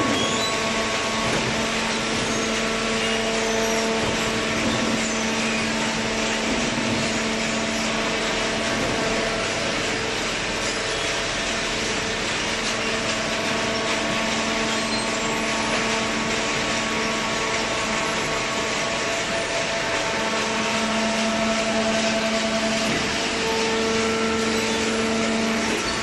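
Cardboard shredding and baling machinery running steadily: a loud, even mechanical din with a constant low hum from the motors and hydraulics.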